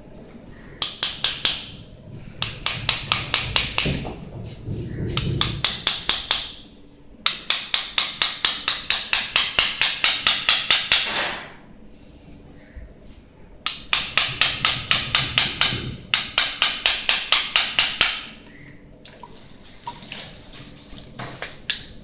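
Rapid, even clicking at about five clicks a second, in runs of one to four seconds broken by short pauses, the longest run near the middle.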